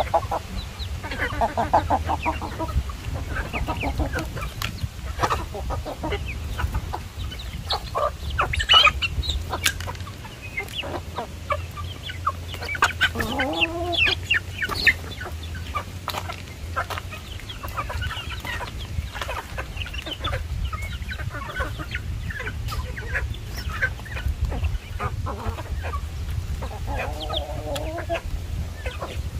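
Domestic chickens clucking as they forage, with short calls scattered throughout and a few longer calls now and then.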